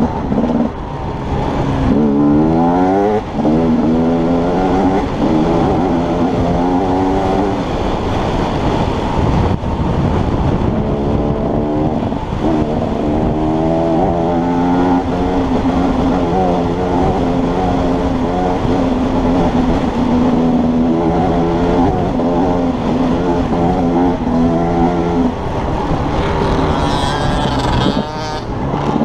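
Husaberg enduro motorcycle engine under hard riding, heard from a helmet camera, with wind rush on the microphone. It revs up sharply through the gears a couple of seconds in, holds a fairly steady high note through the middle, and revs up again near the end.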